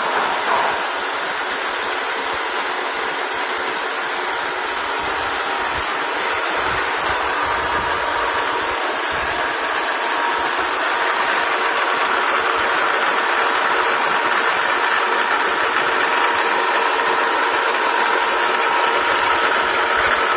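Metal lathe rigged for milling, running steadily with a constant mechanical hiss and whine that grows slightly louder about halfway through.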